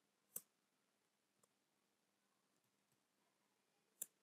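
Near silence broken by a few isolated clicks of computer keyboard keys being typed: one about half a second in, one near the end, and a couple of fainter ticks between.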